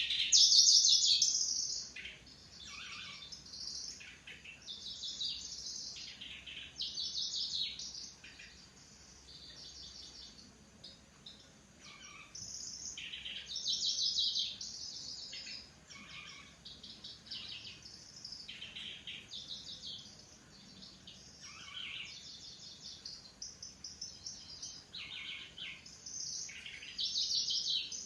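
Kecici belalang (cici lurik) songbird singing: a run of high, buzzy, insect-like chattering phrases, each a second or two long with short pauses between, loudest in the first couple of seconds.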